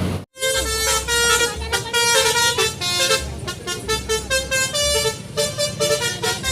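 Bus telolet basuri musical horn playing a quick melody of short, changing notes over a low throb, starting after a brief dropout.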